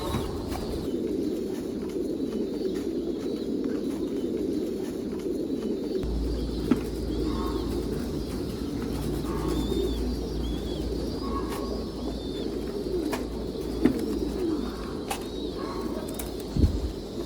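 A flock of domestic pigeons cooing continuously, many birds overlapping, with a few sharp knocks about a third of the way in and near the end.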